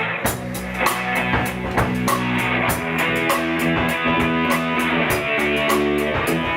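Instrumental music with a steady beat, a break between sung lines of the song.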